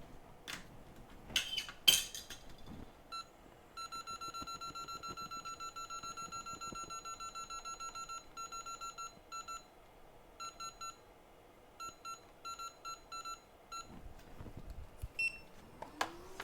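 A few sharp metallic clinks. Then a hot air rework station beeps rapidly, about six beeps a second, as its setting is stepped, followed by a few shorter groups of beeps. Near the end its blower starts with a quickly rising whine that levels off to a steady hum.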